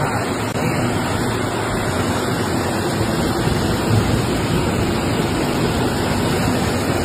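Floodwater rushing steadily as a fast, high river in flood.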